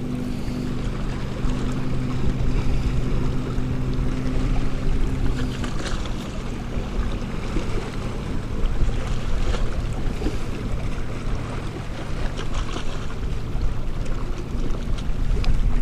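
Wind buffeting the microphone over water lapping. A low steady motor hum runs under it and fades out about six seconds in.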